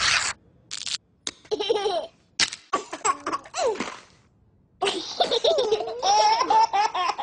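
Babies laughing: a few short breathy giggles at first, then bursts of high-pitched baby laughter that run together into one long stretch of laughing from about five seconds in.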